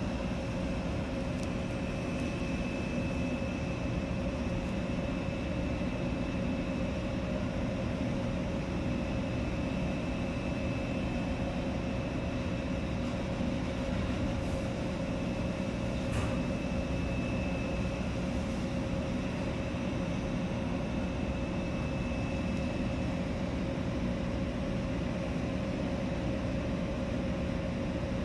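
Steady low drone of a ship's engine and machinery, with a constant hum and a thin high whine on top, heard from inside the vessel. A couple of faint clicks sound about halfway through.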